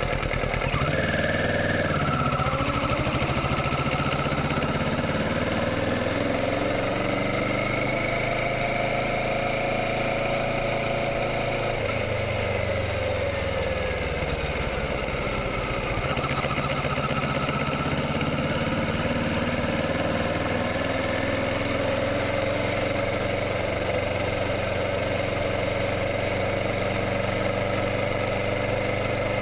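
Kawasaki Ninja 650's parallel-twin engine running under way, its note rising and falling with throttle and gear changes. It drops away in the middle and picks up again, over a steady rush of noise.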